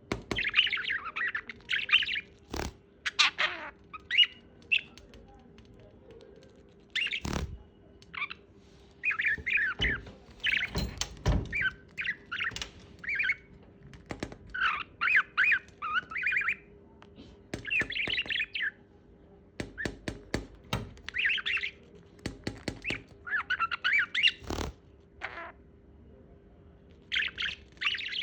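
Pet parrot chattering and squawking in many short, scratchy bursts, with several sharp clicks or knocks between them, over a faint steady hum.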